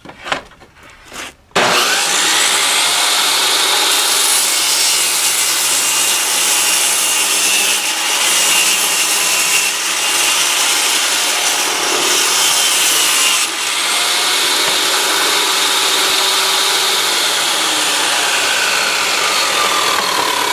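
Power saw ripping 3/4-inch plywood into 3-inch-wide strips, its cutting noise starting abruptly about a second and a half in and running steadily on, after a few clicks.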